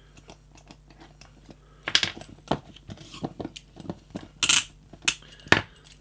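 Metal handcuff keys and handcuffs being handled: a run of sharp clicks and clinks that starts about two seconds in, with a brief rasping jingle about four and a half seconds in and two more sharp clicks near the end.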